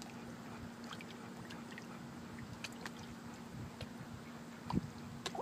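Water lapping and splashing lightly around a golden retriever standing in a lake, with scattered small clicks and a louder thump near the end, over a low steady hum.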